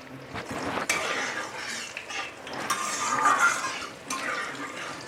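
A metal spoon stirring and clinking against a cooking pan, with a couple of sharp clicks about half a second and a second in, followed by irregular scraping.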